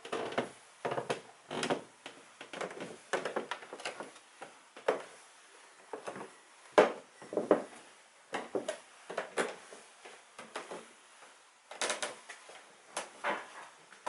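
A newly installed staircase creaking and knocking in short, irregular bursts as it is stepped on. The creaking is a flaw that has appeared since installation.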